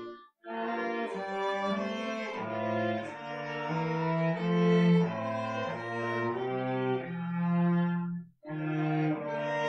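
A cello and a violin playing a hymn tune in sustained, bowed notes, the cello carrying the bass line under the violin's melody. The phrases break off briefly about half a second in and again about a second before the end.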